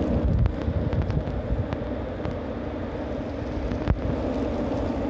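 Wind rumbling on the microphone over a steady low hum, with a few sharp clicks, one louder about four seconds in.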